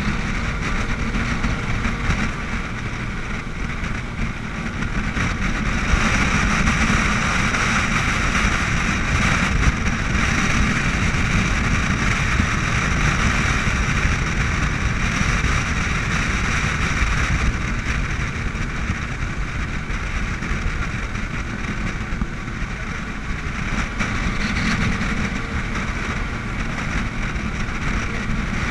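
A 40-foot speedboat running at speed: a steady rush of engine, hull spray and wind noise, a little louder for a stretch in the middle.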